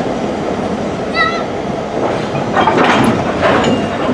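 Old diesel locomotives and railroad cars rolling slowly past on the rails, wheels rumbling steadily, with a brief high squeal about a second in and louder clattering from the wheels and running gear a little past halfway.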